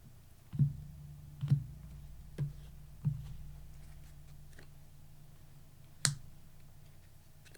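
Tarot cards being handled and laid down on a table: soft knocks and taps, four close together in the first three seconds and one more about six seconds in.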